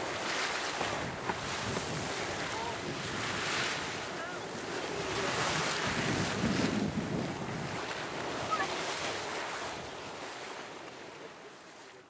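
Waterfall Geyser erupting: hot water splashing and surging in its pool, with wind rumbling on the microphone. It swells in the middle and fades out near the end.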